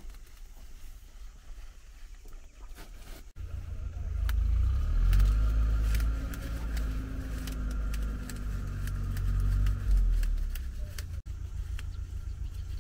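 An engine running, its pitch rising and then falling over several seconds, with a low rumble; a few faint ticks before it starts.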